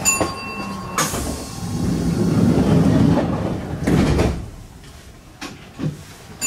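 Sliding passenger doors of a Kintetsu train closing. A steady electronic tone stops about a second in, then the doors run shut with a rushing rumble for about three seconds and close with a knock.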